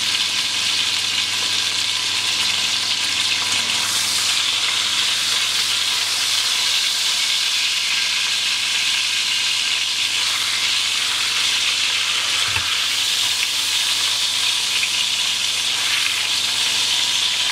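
Beef searing in hot oil in a cast iron dish, a steady loud sizzle as the meat is sealed. A single low knock about two-thirds of the way through.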